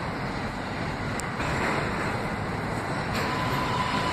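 New York City subway train approaching along the elevated structure, its rumble growing louder, with a steady high whine setting in near the end as it comes into the platform.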